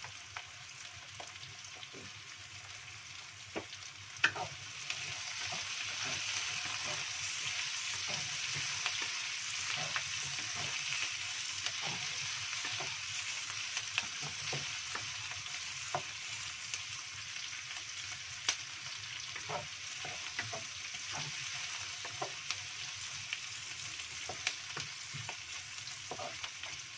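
Shallots, garlic and petai beans sizzling in hot oil in a wok while a wooden spatula stirs them, scraping and knocking against the pan. The sizzle grows louder about five seconds in.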